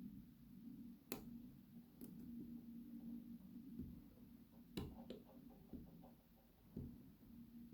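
Faint metallic clicking of a hook pick and tension wrench working the pin stacks inside an ABUS 83/55 padlock, with a few sharper clicks about a second in, at two seconds and twice near five seconds, as pins set, over a low steady hum.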